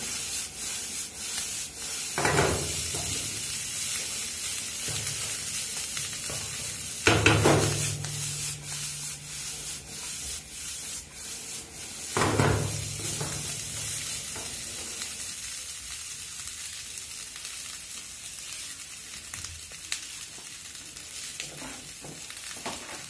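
Egg fried rice sizzling in a frying pan over a gas flame, stirred and scraped with a wooden spatula. It has three louder rushes about five seconds apart as the rice is tossed, and the sizzle eases off over the last several seconds.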